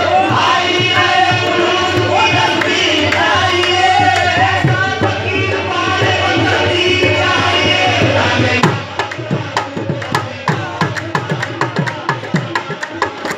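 Qawwali: voices singing over tabla drumming. About nine seconds in the singing stops and the tabla carries on alone with quick, sharp strokes.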